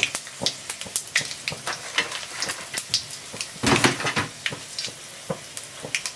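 Hot coconut oil sizzling in a kadai as a tempering of mustard seeds, cumin, fenugreek and broken dry red chillies fries, with many scattered crackles and pops. A louder burst of sizzle comes a little past halfway through.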